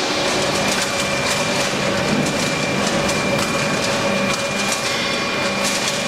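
Used-beverage-can baler running: a steady machine hum with a constant whine, overlaid by a continuous clatter of aluminium cans rattling and being crushed.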